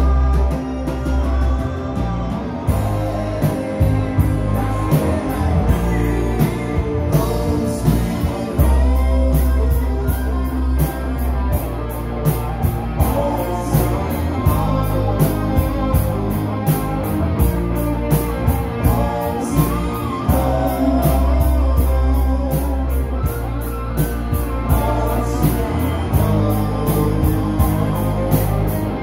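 Live rock band playing through a PA: electric guitars, bass and drums with a steady beat.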